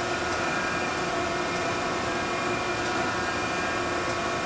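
Okamoto 1224 surface grinder running: a steady machine hum with several held tones over an even whir.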